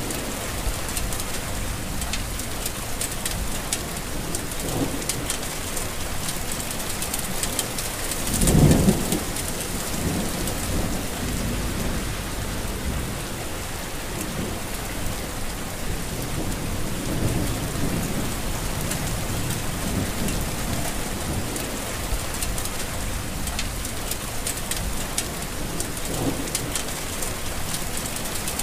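Heavy rain falling steadily, a dense even hiss with many small drop ticks. About nine seconds in comes a brief low rumble, the loudest moment.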